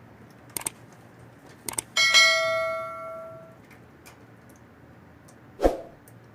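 A metal object struck once, ringing like a bell and dying away over about a second and a half, after a few light clicks. A single dull knock comes near the end.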